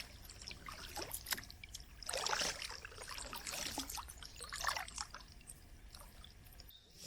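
Kayak paddle dipping into the water in a few strokes about a second apart, water trickling and dripping off the blade between them.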